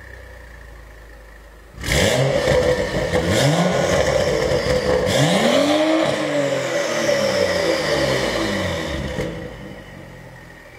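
BMW M135i's turbocharged 3.0-litre straight-six idling through an Armytrix valved exhaust. About two seconds in it suddenly gets much louder as the exhaust valves open. It is then revved twice, a short blip and then a longer rev that rises and falls, before settling back to a quieter idle near the end.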